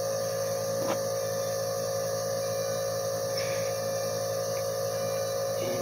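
A steady hum at an even level, with a single light click about a second in as the plastic action figure and its hammer are handled.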